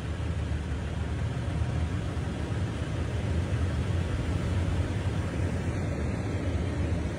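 Wind rushing over and buffeting a phone's microphone outdoors: a steady rumbling hiss with no pitched sound in it.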